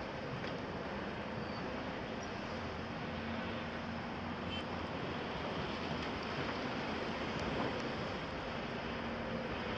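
Steady drone of a Volvo EC300 crawler excavator's diesel engine working at a distance, set in a constant background hiss.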